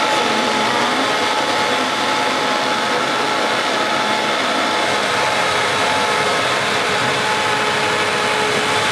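Countertop blender running steadily at high speed with a continuous motor whine, blending soaked cashews with coconut milk, coconut oil and water into a smooth cashew cream.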